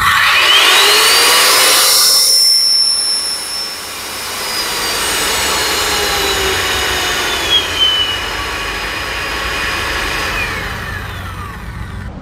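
Polymak PM7WS 850-watt wall sander switched on and running free, unloaded: its motor whine rises sharply over the first second or two as it spins up, then slowly falls in pitch over the rest of the run.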